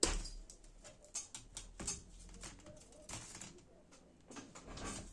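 Handling noise from hands working on an open laptop: a sharp knock at the start, then scattered clicks and a few short scraping or rustling sounds.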